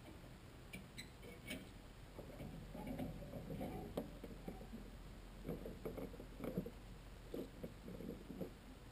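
Hands working at a boat trailer's bow winch and the boat's bow: a few light metallic clicks in the first second and a half, then two spells of soft, irregular knocking and rattling.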